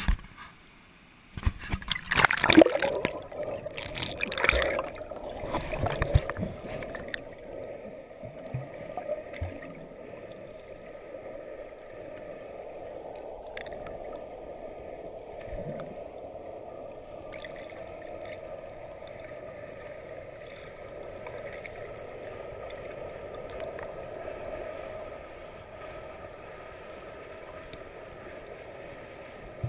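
Water splashing and sloshing around the camera as it goes below the surface in the first several seconds. Then the steady, muffled rush of creek rapids heard underwater, with bubbles streaming past.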